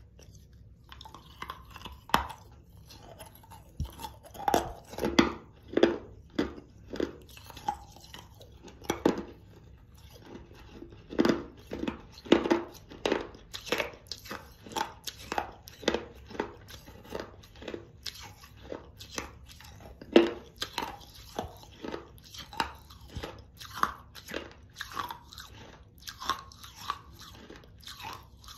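Close-up crunching and chewing of hard, gritty Mexican clay pot pieces: an irregular run of sharp crunches, about one or two a second, as the fired clay is bitten and ground between the teeth.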